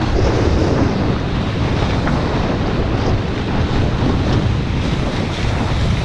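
Steady rush of wind buffeting the microphone, mixed with water hissing and spraying off the hull of a Hobie 16 catamaran sailing fast.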